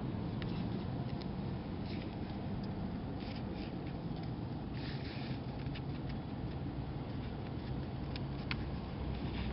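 Road and engine noise inside a moving car: a steady low rumble, with a few faint clicks and short hisses scattered through it.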